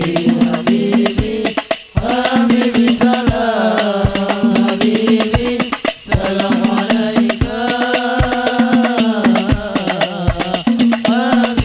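Sholawat devotional singing with a hadrah ensemble of hand-struck frame drums (rebana). A sung melody with long held notes runs over a steady pattern of deep drum strokes and quick, sharp hand strikes.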